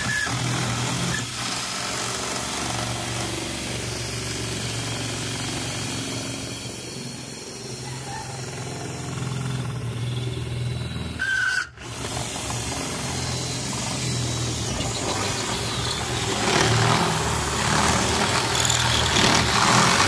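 Cordless drill with a half-inch bit boring through the wall of an old drinks fridge, the motor running steadily under load. It stops briefly a little before halfway, starts again, and runs louder and rougher over the last few seconds.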